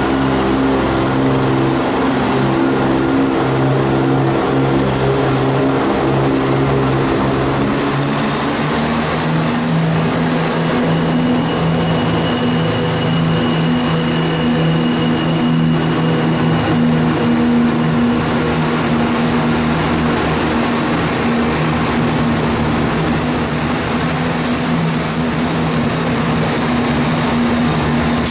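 Class 170 Turbostar diesel multiple unit's underfloor diesel engines running with a steady drone and a thin high whine; the engine note shifts about ten seconds in as the engines change speed.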